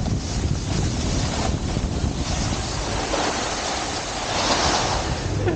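Wind buffeting an action camera's microphone while snowboarding downhill, with a snowboard hissing and scraping over the snow; the hiss grows brighter about four seconds in.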